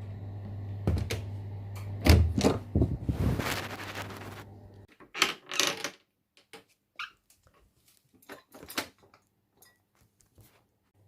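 A door being worked: a loud scrape and knocks, then a series of sharp clicks and knocks from the latch and frame.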